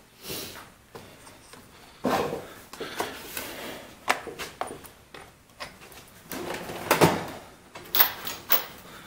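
Irregular clicks, knocks and rustling of hands handling small parts against the plastic housing of a Husqvarna 125B leaf blower on a workbench. The sharpest knocks come about seven and eight seconds in.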